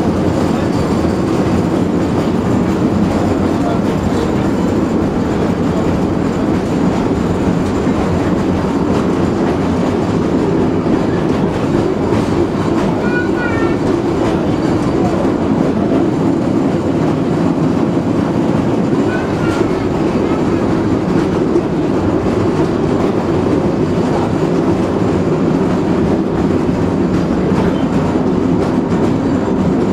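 1919 Birney single-truck streetcar running along its track, a steady rumble of wheels on rail and running gear heard from inside the car. Two brief, faint high squeaks come through, about halfway through and again a few seconds later.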